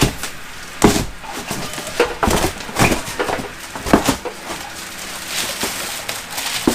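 Cardboard shipping box of a water heater being cut and pulled open by hand: irregular knocks, thuds and scrapes of cardboard, about seven sharp ones, over a low rustle.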